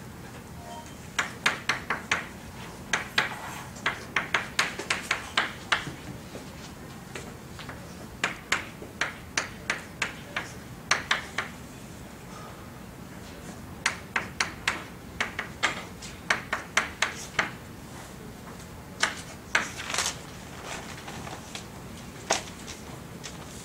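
Chalk writing on a blackboard: quick runs of sharp clicks and taps as each word and symbol is written, in bursts separated by short pauses.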